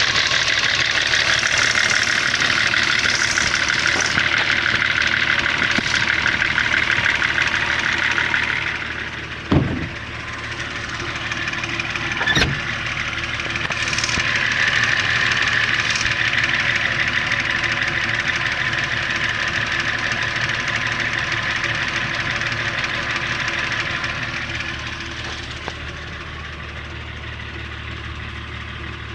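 BMW 525tds's M51 straight-six turbodiesel running with a fast knocking rattle, the sign of a broken damper on the crankshaft pulley. Two sharp thuds come about ten and twelve seconds in, and the engine gets quieter near the end.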